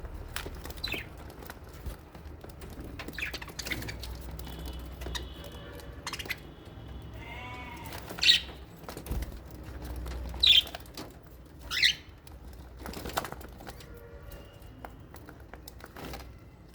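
Lovebirds and budgerigars chattering and calling in an aviary: scattered chirps and clicks, with three loud, shrill calls about halfway through and soon after.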